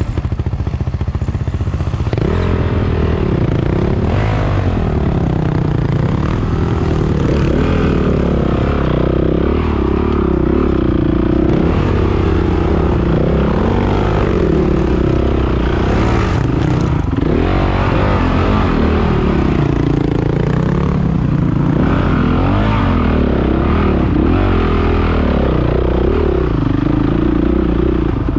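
Enduro dirt bike engine, up close, revving up and down over and over as the bike is picked slowly over rocky trail, with a few knocks near the middle.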